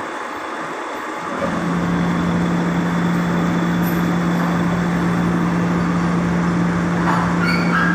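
Soviet industrial lapping machine running in automatic mode, with a steady rushing noise; about a second and a half in, a steady low hum comes on and the machine runs louder. There are a few faint high squeaks near the end.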